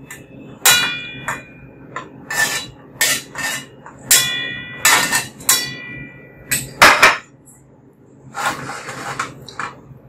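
Wire skimmer knocking and scraping against a thin metal wok as boiled pork is scooped out, a string of sharp clanks with a few that ring, notably about a second in and around four seconds in.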